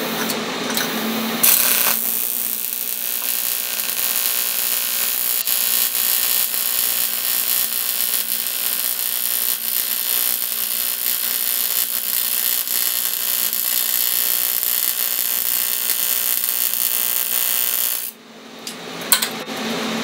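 AC TIG welding arc from an AHP AlphaTIG 200X on 1/8 in aluminium: the arc strikes about a second and a half in and runs with a steady buzzing hiss for about sixteen seconds, then cuts off near the end.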